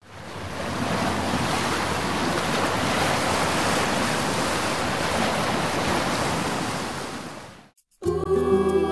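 Ocean surf, a steady wash of breaking waves that fades in at the start and fades out about seven and a half seconds in. After a brief silence, music begins near the end.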